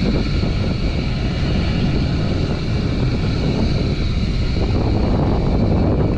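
A well-service hoist rig's engine running steadily: an even low rumble with faint steady whining tones above it.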